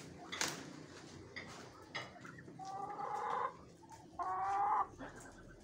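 A chicken calling twice, two drawn-out calls about a second apart, the second one shorter and louder, with a sharp knock about half a second in.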